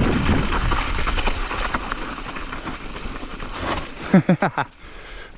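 Mountain bike rolling fast over loose gravel and rock: a steady rushing of tyre crunch, bike rattle and wind noise on the microphone. About four seconds in, a few short wavering pitched sounds cut through, and the noise drops off near the end as the bike slows.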